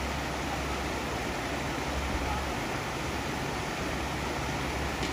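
Steady rushing of a shallow river pouring through the culverts under a small bridge and over rocks.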